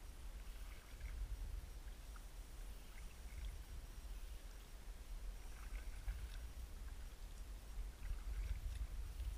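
Folding kayak being paddled: the paddle blades dip and drip water in light, scattered splashes over a steady low rumble.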